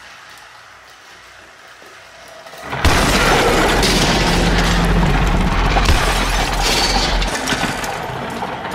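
A sudden loud crash with shattering and breaking about three seconds in, lasting around six seconds over a deep rumble, as battery-powered toy trains collide at a track crossing. Before it, the faint steady whir of the toy trains' small motors.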